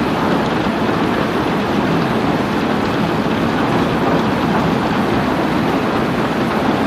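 Heavy rain falling steadily: a dense, even hiss with much of its weight low down and no distinct drops or claps standing out.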